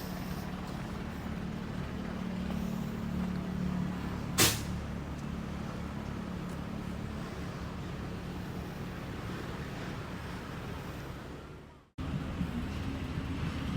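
Steady low hum of vehicle engines, with one sharp click about four and a half seconds in. The hum fades out near the end, then starts again.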